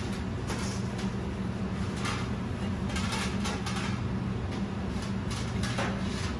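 Steady low hum of commercial kitchen equipment, with scattered short scrapes and crumbly rustles as cookie crumbs are pressed by hand into a metal pan.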